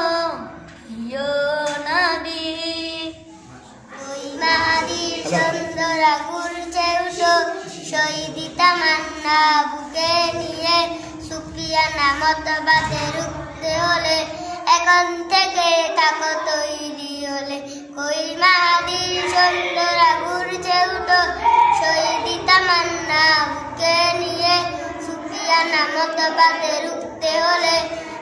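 A boy singing a Bengali Islamic song solo. The singing pauses briefly a few seconds in, and then another boy's voice begins a new song.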